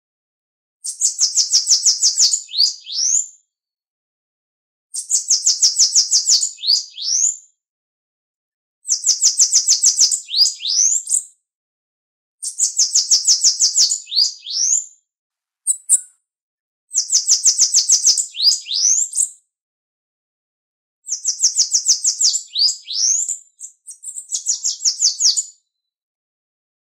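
Bananaquit (Coereba flaveola) singing: six songs at roughly four-second intervals. Each is a fast, high trill of rapid notes lasting about two seconds and ending in a few quick rising notes.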